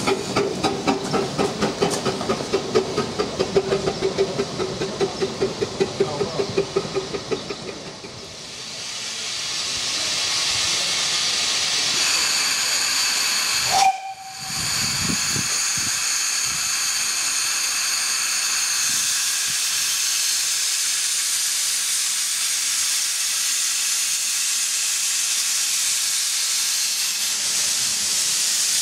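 A 15-inch gauge miniature steam locomotive running past with loud rhythmic beats, about four a second, which fade out after about eight seconds. Then a standing steam locomotive hisses steadily, steam pouring from it with a thin whistling edge, broken by one brief high tone about halfway through.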